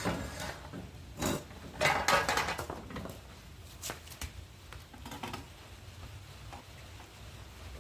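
Several knocks, clatters and rustles of objects being handled, loudest about two seconds in, with fainter ones later, over a steady low hum.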